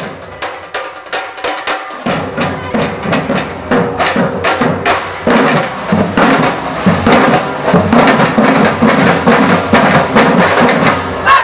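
A Brazilian samba-reggae drum band playing. Sharp snare and repique strikes keep a fast, steady rhythm, the deep surdo bass drums come in about two seconds in, and the whole band grows steadily louder.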